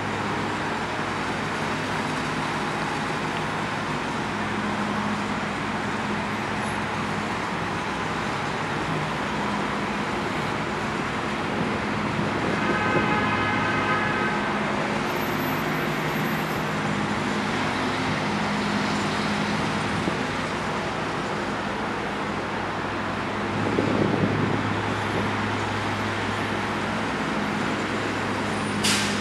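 Steady city traffic noise with a low hum, a brief tone about thirteen seconds in, and a sharp click near the end.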